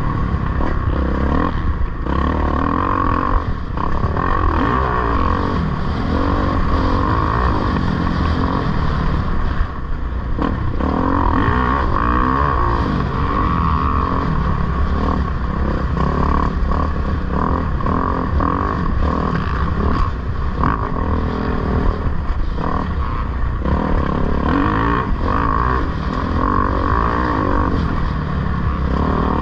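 Kawasaki KX450F single-cylinder four-stroke motocross engine at race pace, its revs climbing and falling with the throttle. The level drops briefly about ten seconds in.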